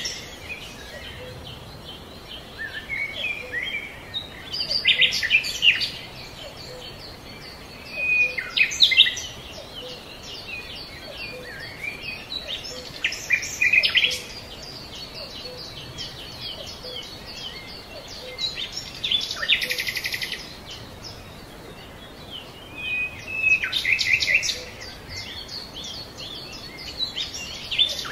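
Birdsong: short chirping and trilling phrases come in bursts every few seconds over a steady background hiss.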